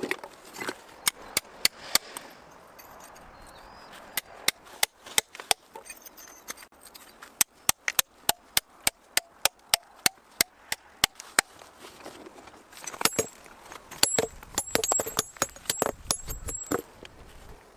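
A hammer striking steel wedges set in drilled holes in a volcanic boulder: a long run of sharp metal-on-metal strikes, several a second, with brief high ringing near the end.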